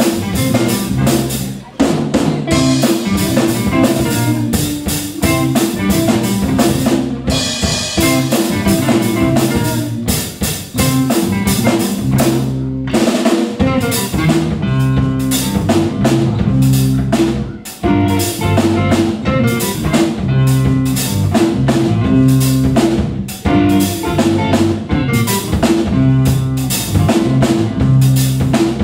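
Live rock band playing: drum kit, two electric guitars and electric bass, with the music dropping back briefly a few times.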